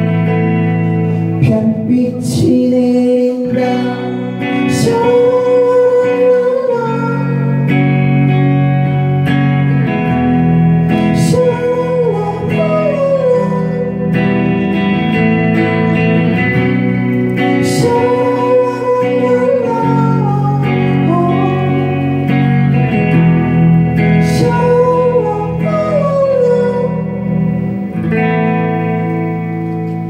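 Live rock band playing an instrumental passage: electric guitars, bass and drums, with a melody line that slides between notes over held low chords and cymbal crashes now and then.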